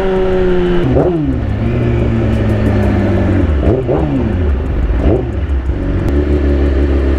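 Vehicle engine running in slow traffic. Its pitch drops sharply about a second in, then dips and rises quickly twice near the middle as it is revved.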